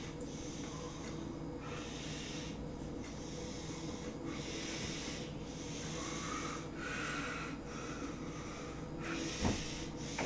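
Kitchen knife sawing through cooked chicken breast on a cutting board: soft rasping strokes about once a second over a steady low hum, with one knock of the blade on the board near the end.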